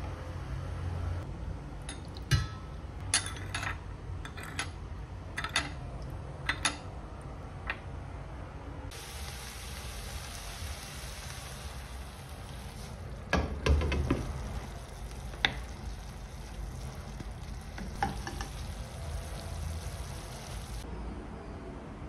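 A metal spoon clinks repeatedly against a small glass bowl as sugar is stirred into soy sauce. About nine seconds in, chicken and onion start sizzling steadily in a nonstick frying pan, with a few knocks as the sauce is poured in and stirred. The sizzle stops shortly before the end.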